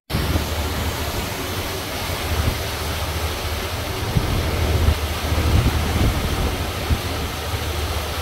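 Wind buffeting the microphone: a loud, steady rush with an uneven low rumble that swells and fades beneath it.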